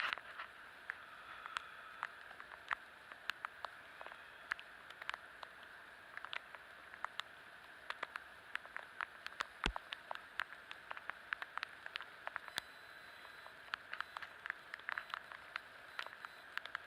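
Rain falling steadily, a constant hiss with many irregular sharp taps of drops.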